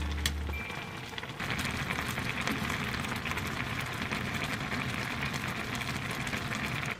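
Crab ramyeon boiling in a stainless-steel pot, a steady bubbling of the broth; the last note of background music dies away in the first second.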